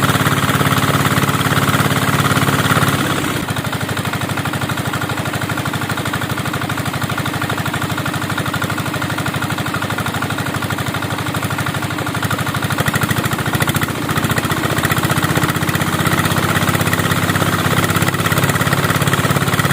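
Small engine driving a rice threshing machine, running steadily. It drops in level about three and a half seconds in and picks up again around fourteen seconds.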